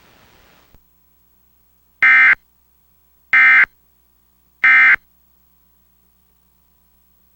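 Emergency Alert System end-of-message code: three short, loud bursts of buzzy two-tone data signal, about a second apart. They mark the end of the national EAS test alert.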